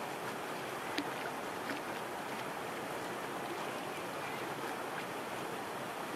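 Steady outdoor lake ambience: an even rush of breeze and rippling water, with one sharp click about a second in.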